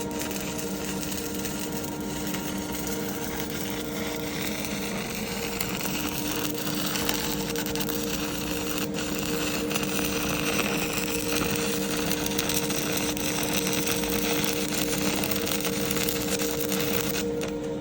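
Stick welding arc crackling steadily and without a break, over a steady low hum.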